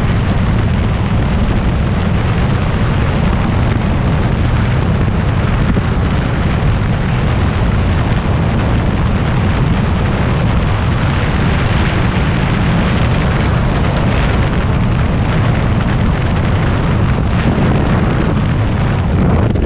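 Freefall wind rushing over a skydiver's helmet-camera microphone: a loud, deep, steady roar.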